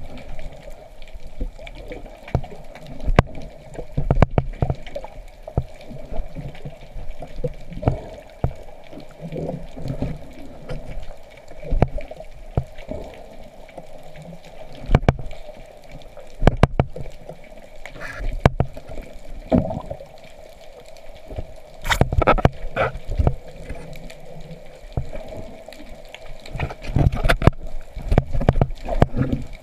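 Underwater water noise around a camera in its housing: sloshing and bubbling under a steady hum, with many irregular sharp clicks and knocks.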